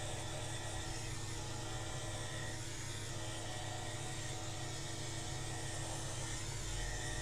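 Electric hair clippers running with a steady buzz while shaving off a full beard along the jaw and neck.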